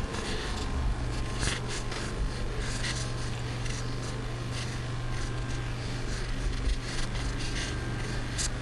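A steady low hum under a haze of scratchy, rustling noise, with scattered soft clicks.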